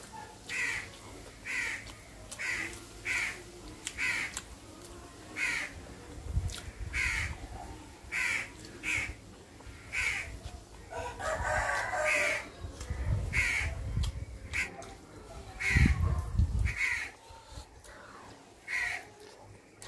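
Crows cawing over and over, about one caw a second, with a rooster crowing once in the middle. A few low rumbles, the loudest near the end.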